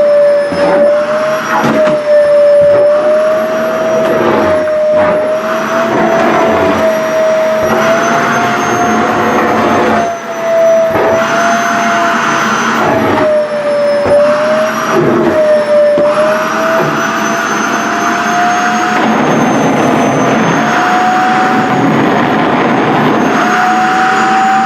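SHARP EC-KP7F-A vacuum cleaner running with a steady whine whose pitch wavers up and down as the airflow changes. The fabric of a flared skirt rustles and flaps irregularly against the suction.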